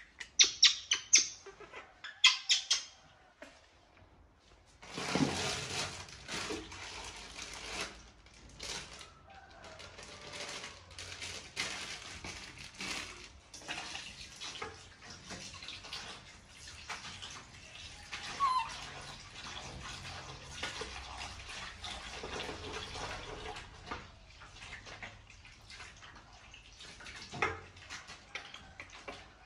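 A baby monkey's shrill squeaks in the first few seconds. From about five seconds in, tap water runs into a steel basin, with small knocks and clatter as vegetables are washed.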